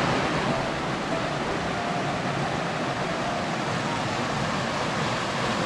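Steady, even rush of water from a rocky hill stream flowing over stones.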